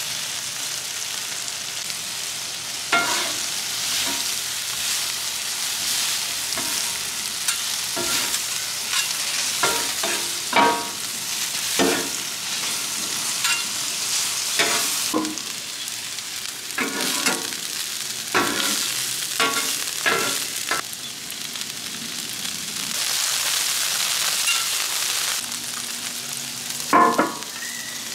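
Onions and butter sizzling on a hot flat-top griddle, with metal spatulas repeatedly clanking and scraping on the griddle plate as the onions are tossed. A louder metal clank comes near the end.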